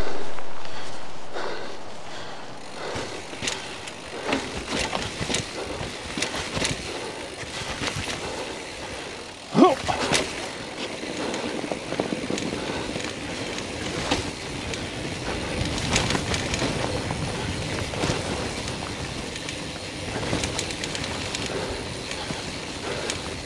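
Mountain bike ridden over rough trail in strong wind: a continuous rush of wind with the rattling and clicking of the bike over bumps, and a brief rising squeak about ten seconds in.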